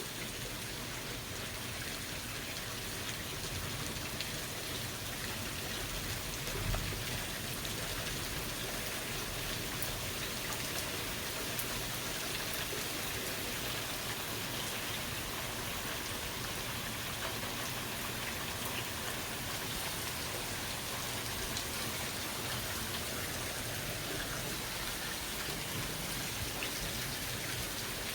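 Steady rain falling, with scattered drops ticking on surfaces. A brief low thump comes about seven seconds in.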